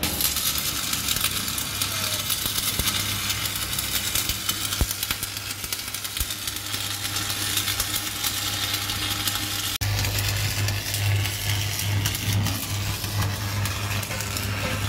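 Electric arc welding on a steel truck rim: a steady crackling, spitting hiss. About ten seconds in the sound changes abruptly and a strong low electrical hum joins the crackle.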